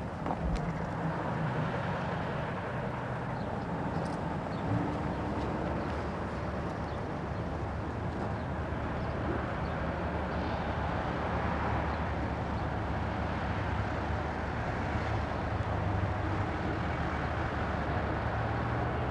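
A steady low rumble of lorry diesel engines idling.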